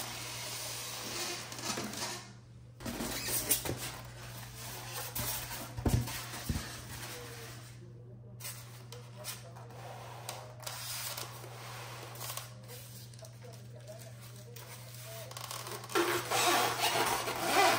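Hands unpacking a diecast airliner model from a polystyrene foam tray: rustling of the model's clear plastic wrapping and foam scraping, with a knock about six seconds in and louder plastic rustling near the end. A low steady hum runs underneath.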